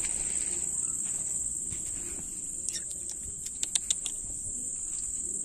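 Crickets chirping in a steady, continuous high-pitched trill. A few sharp clicks land in a quick cluster about three and a half to four seconds in.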